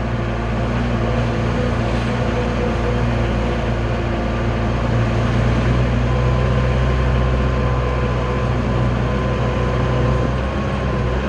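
Old Mitsubishi L300 pickup's engine running steadily as it drives under a heavy overload, heard from inside the cab. A faint high whine rides over it in the second half.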